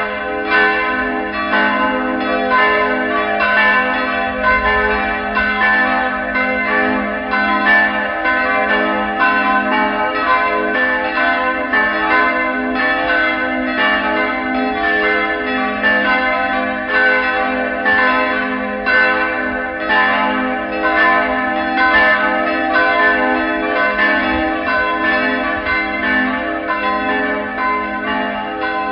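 Church bells ringing in a continuous peal, struck again and again in quick succession so that their tones overlap and hang in the air.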